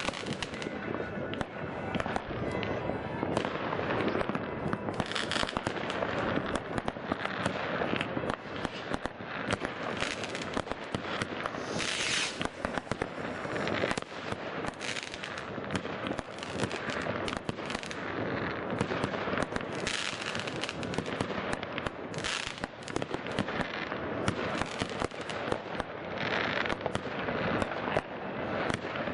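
Many fireworks going off at once: rockets and firecrackers in a dense, unbroken stream of bangs and crackling, with a few brief louder crackling bursts.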